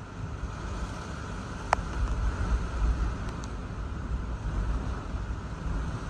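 Hurricane wind and rain heard from a car: a steady rushing hiss over a low, gusting rumble of wind on the microphone, with one sharp tick about two seconds in.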